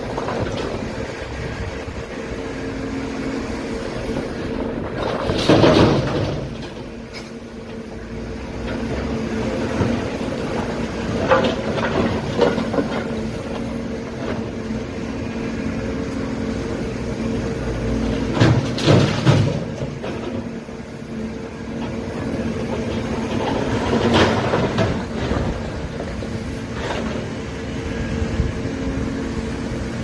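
Hidromek tracked excavator's diesel engine running steadily under load, with the crash and clatter of broken paving and rubble dropped from its bucket into a steel dump truck bed four times, about every six seconds.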